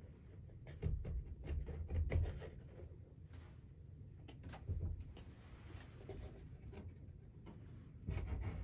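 Handling noise inside a closed hunting blind: quiet rustling and rubbing with scattered light clicks and knocks, and a few low bumps about a second in, around two seconds, near five seconds and again near the end.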